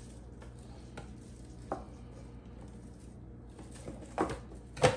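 Juicer lid being worked onto the juicer body: a faint click about two seconds in, then a few sharp clicks and knocks near the end as it is fitted into place.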